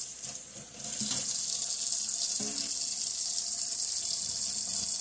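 Kitchen faucet running into a stainless steel sink in a steady stream, its sound briefly changed at the start while fingers are rinsed under the water.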